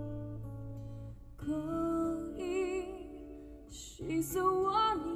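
A slow live ballad, a woman singing over acoustic guitar, played through a Pioneer carrozzeria DEH-970 head unit and the Toyota Prius α's stock speakers, heard inside the car. Her wavering, held notes come in twice, about a second and a half in and again near the end.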